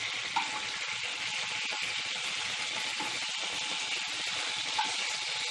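Hot cooking oil sizzling steadily in a frying pan as pieces of fried chicken are lifted out with metal tongs, with a few light clicks of the tongs.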